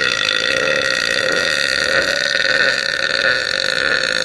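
A woman's long, loud burp: one unbroken belch held at a steady pitch.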